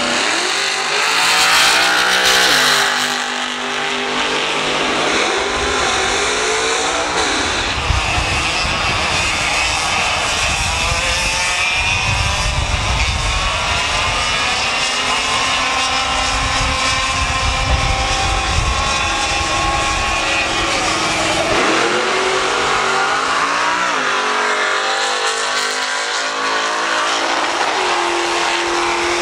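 Several 100cc two-stroke Leopard kart engines racing, their overlapping notes rising and falling as the karts accelerate and back off through the corners.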